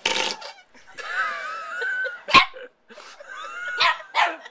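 A large whoopee cushion let out in long, wavering squealing fart noises, twice, broken by a few sharp barks from a small terrier.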